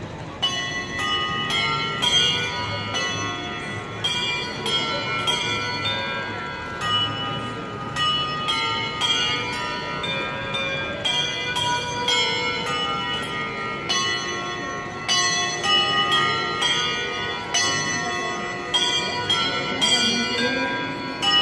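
A handbell choir playing a tune: hand-held bells struck one after another in quick succession, each note ringing on under the next.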